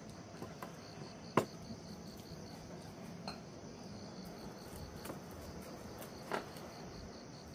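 Insects chirping in a steady, rapid pulsing rhythm, about four high-pitched pulses a second, over a constant high hiss. A sharp knock about a second and a half in, and another, softer one near the end.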